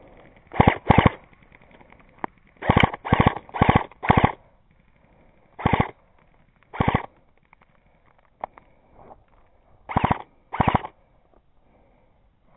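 Airsoft electric gun firing in short automatic bursts of rapid shots, about ten bursts in all, several coming in quick pairs or runs, with a few single clicks between.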